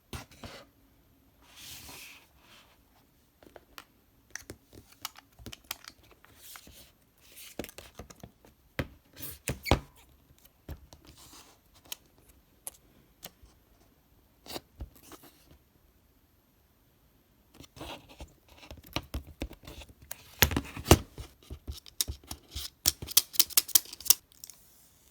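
Hands unboxing a new iPhone 11: tearing of the wrapping tabs, paper and plastic rustling and scratching, and scattered clicks and taps. A rapid run of sharp clicks and taps comes near the end.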